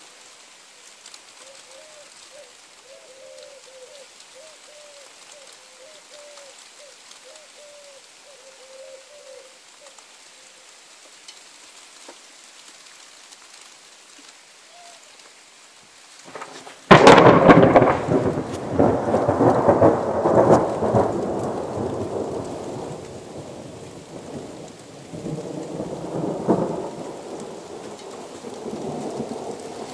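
Steady rain falling, then a little past halfway a sudden loud thunderclap breaks out and rolls on as rumbling thunder, swelling again twice over about ten seconds before dying down.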